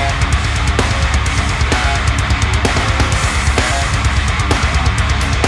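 Loud background rock music with guitar and drums and a steady beat.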